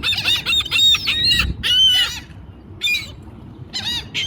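Seagulls squawking: a rapid run of overlapping harsh calls for about two seconds, then a single call and a few more near the end.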